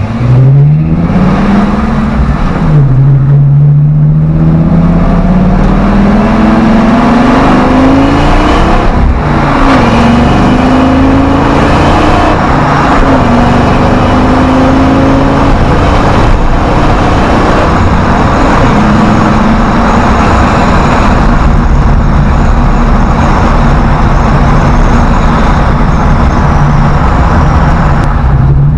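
Ford Triton 6.8-litre V10 in a 1970 Ford F100, breathing through a 2.5-inch X-pipe exhaust, pulling through the gears of its five-speed manual. The engine note rises and drops at each of three upshifts in the first dozen seconds, then holds steady at cruising speed and drops once more near the end.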